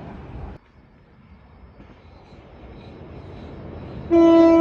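Train horn sounding one loud, steady note near the end, over the slowly growing rumble of an approaching train.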